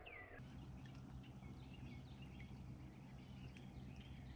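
Faint steady low hum of a boat motor running at slow trolling speed, with a few faint bird chirps over it.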